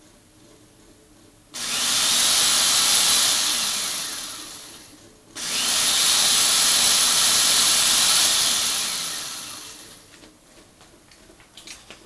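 Electric drill switched on and off twice through a remote-controlled relay: it starts abruptly about a second and a half in, runs steadily, then winds down when the power is cut. It starts again about five seconds in and winds down once more.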